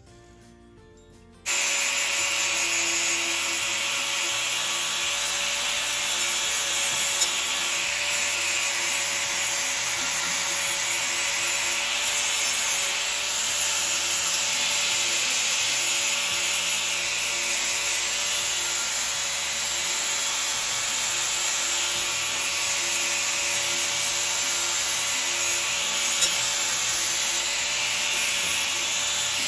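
Power tool running continuously on sheet metal: a steady whine under a loud hiss. It starts suddenly about a second and a half in.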